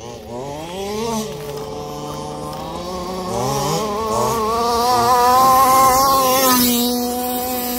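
Small two-stroke petrol engines (23cc and 29cc) of HPI Baja 5B 1/5-scale RC buggies revving up and down as they race on dirt. The sound grows loudest as a buggy passes close, about six seconds in, then the pitch drops.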